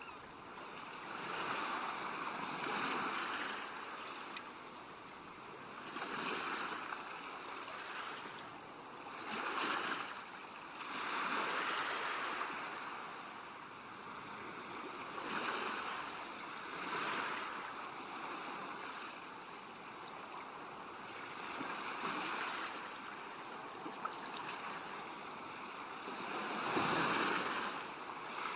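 Ocean waves breaking on a shore: a hissing wash of surf that swells and fades every few seconds, with the biggest wave crashing near the end.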